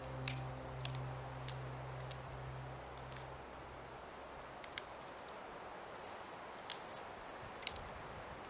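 Dry dead twigs and branches snapped by hand into firewood: about eight sharp cracks at irregular intervals. Background music fades out in the first few seconds.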